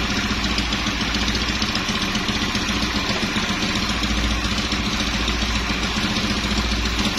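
Honda Beat scooter's single-cylinder four-stroke engine, fitted with a Keihin PE26 carburettor, idling steadily with no revving while its idle speed is set lower; the idle is now even and normal.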